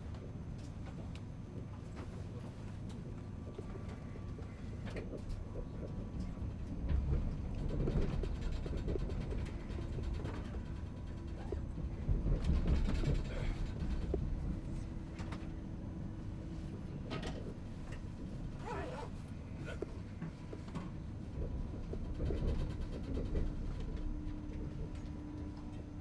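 Railway background noise: a steady low rumble with scattered knocks and clicks and two louder swells, and a steady hum that comes in about halfway through.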